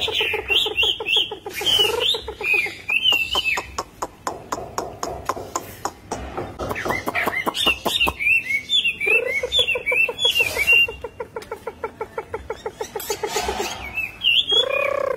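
Chinese hwamei singing: quick, warbling whistled phrases that slide up and down, mixed with fast runs of lower repeated notes, one long run starting about nine seconds in.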